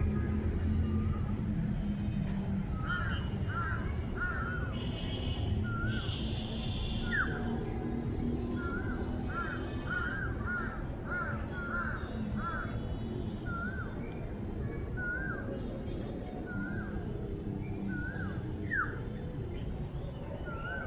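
Bird calling over and over in short, hooked notes, sometimes in quick runs of several a second, over a steady low rumble.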